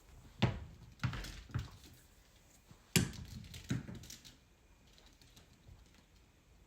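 Six irregular knocks and thumps on a hard surface, the loudest about half a second in and again at three seconds, then quiet.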